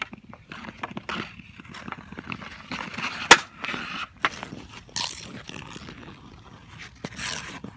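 Ice skate blades scraping and carving on pond ice, with a sharp crack of a hockey stick striking the puck about three seconds in and a few lighter knocks. There are hissing skate scrapes about five and seven seconds in.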